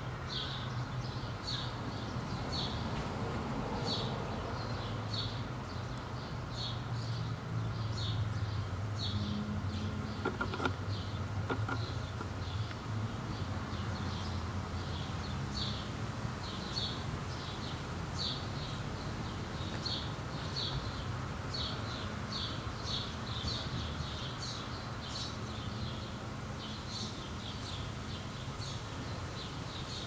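Honey bee swarm buzzing: a steady low hum of many bees flying around the clustered swarm. Short high chirps repeat about once or twice a second over it, likely a bird.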